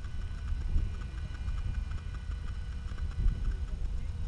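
Wind buffeting the microphone: a gusty low rumble that swells and dips, with a faint steady thin whine underneath.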